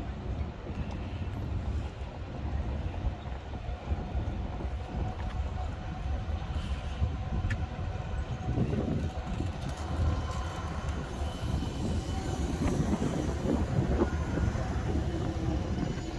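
Electric city tram passing on its rails, louder from about halfway through, over a continuous low street rumble.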